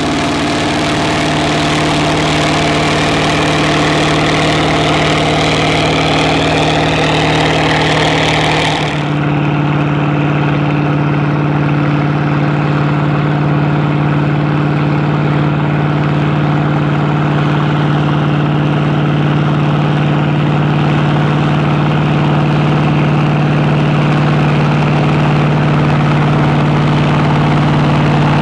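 International 1468 tractor's 9-litre naturally aspirated IH DV550 V8 diesel running steadily under load, pulling a six-bottom moldboard plow. For the first nine seconds a hiss of soil rolling off the plow bottoms rides over the engine. It then stops abruptly and the engine's low, even hum comes forward.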